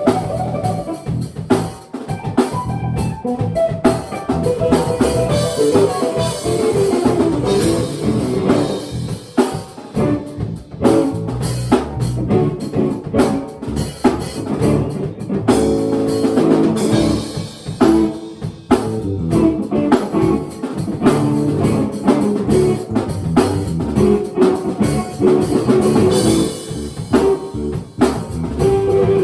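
Live jam by a small band: a drum kit keeping a steady beat with snare and bass drum hits under guitar playing.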